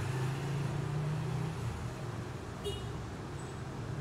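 Street traffic: a motor vehicle's engine running with a steady low hum that fades after about a second and a half. A brief high squeak comes about two and a half seconds in.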